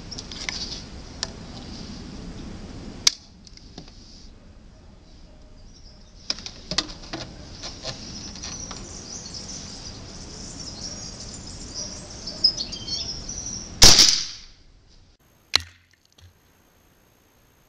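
A Gunpower SSS .22 suppressed PCP air rifle firing a single shot about 14 seconds in: one sharp crack with a short tail, by far the loudest sound. Before it come a few sharp clicks, and faint high bird chirping runs in the background until the shot.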